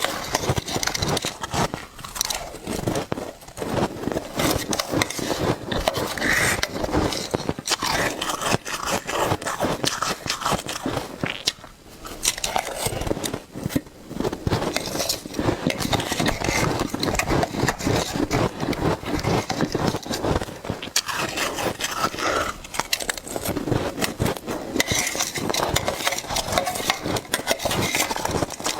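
Shaved ice being bitten and chewed: dense crunching and crackling in quick succession, with brief pauses about twelve and fourteen seconds in.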